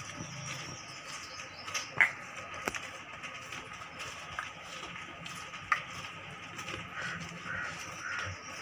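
Hands kneading a large mass of soft maida bhatura dough in a steel tray: quiet pressing and squishing with a few sharp knocks, the loudest about two seconds in.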